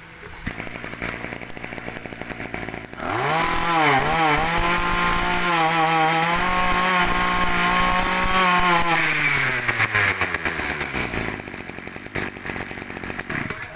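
Ryobi EKK-2620 two-stroke brush cutter engine running at idle, then revved up about three seconds in and held at high revs for several seconds, before the revs fall back to idle near the end.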